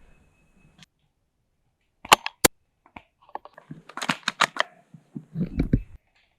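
Sharp cracks of airsoft gunfire: two about two seconds in, then a quick cluster of snaps around four seconds in, followed by a couple of dull thumps near the end.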